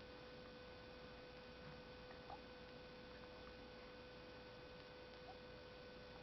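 Near silence: a faint steady hum with a few faint soft ticks.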